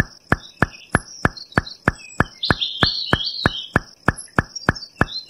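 A rapid, evenly spaced run of sharp clicks, about three a second, with birds chirping behind them and a thin steady high whistle.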